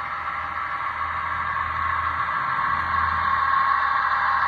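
Model Fairbanks-Morse Trainmaster diesel locomotive running along the layout track toward the camera: a steady hum and whine that grows louder as it approaches.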